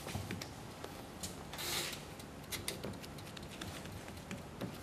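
Faint light clicks and a brief soft rubbing hiss about one and a half seconds in, from a gloved hand smoothing wet mashed potato in a glass baking dish, over quiet room tone.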